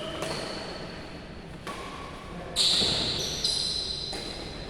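Badminton rackets striking a shuttlecock in a rally: several sharp hits about a second apart, each ringing on in the hall's echo, the loudest a little over halfway through.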